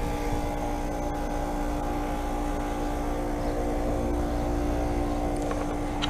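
2003 Bryant heat pump's Copeland scroll compressor running in defrost mode: a steady, kind of loud hum.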